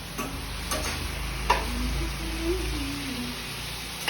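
Buff chilly sauce of onion, capsicum and tomato sizzling in a frying pan while a spoon stirs it, with a couple of sharp clicks of the spoon against the pan.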